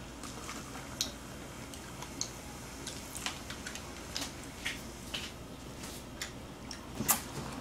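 Scattered small clicks and crackles, a few a second and irregular, from eating crispy fried chicken drumsticks.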